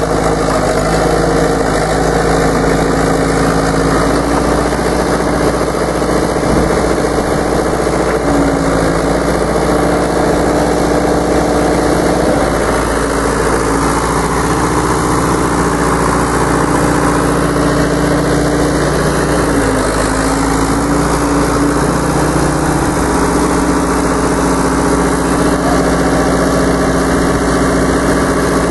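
1974 Hymac 570 tracked excavator running steadily while digging. The engine note sags briefly in pitch twice, about a third and about two-thirds of the way through.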